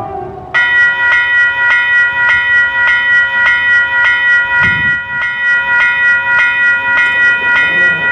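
The last of a train horn chord fades in the first half second, and then a railway warning bell starts suddenly and rings loudly in quick, even strokes, about three a second. The bell sounds over a passing freight train, with a short low thump about four and a half seconds in.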